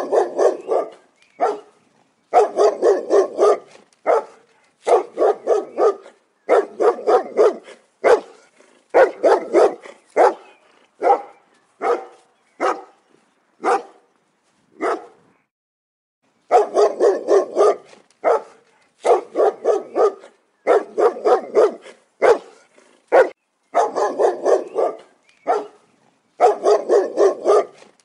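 Large dog barking aggressively in quick volleys of several barks each, separated by short gaps, with a pause of about a second and a half about halfway through.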